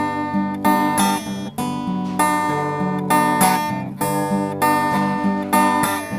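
Acoustic guitar strumming chords in a steady rhythm: the instrumental introduction of a song.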